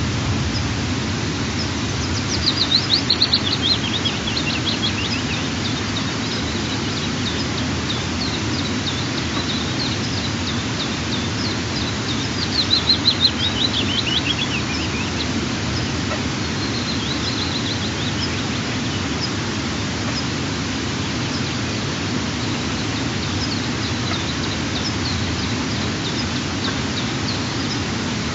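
A small songbird singing: a descending trill of quick, high notes lasting about two seconds, a couple of seconds in and again about halfway, with a shorter phrase soon after and faint chirps between, over a steady low background rush.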